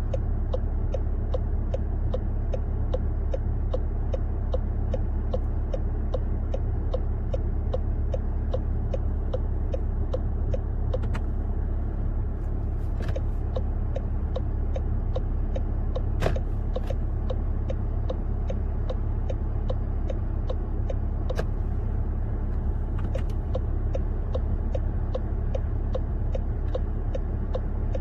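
Second-generation Volkswagen Tiguan turn-signal indicator ticking in an even rhythm, a few clicks a second, over a low steady rumble from the car. A few louder single clicks break in, the sharpest about sixteen seconds in.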